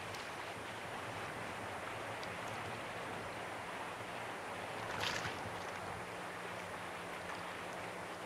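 Calm sea water lapping around a wading angler, with light wind on the microphone, and one brief splash of water at the surface about five seconds in.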